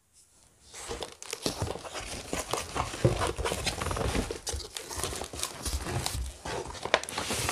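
A taped cardboard shipping box being opened by hand: packaging crinkling and rustling, with irregular clicks and small knocks, starting about a second in.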